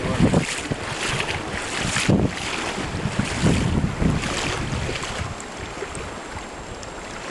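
Wind buffeting the microphone in uneven gusts over the steady rush of river water, easing off in the second half.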